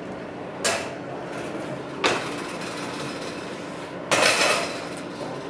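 Three sharp metallic knocks on a metal oven tray, the last one the loudest and ringing on briefly, over a steady hum.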